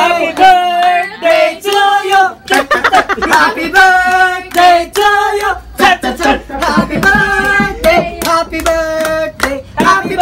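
Singing into a microphone, long held notes, with hands clapping along.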